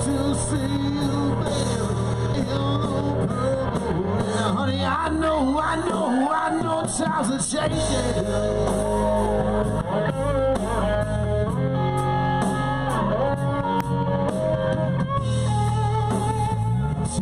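Live band playing rock and roll, with singing and guitar over a steady bass line.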